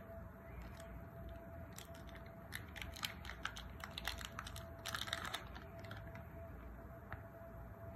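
Cadbury Dairy Milk chocolate wrapper crinkling and being torn open by hand, with scattered small crackles and a denser rustle of tearing about five seconds in.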